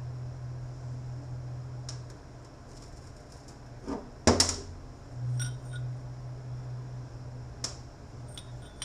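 Metal transfer case parts being handled on a workbench: a few light clicks and one loud metallic clank about four seconds in, over a steady low hum.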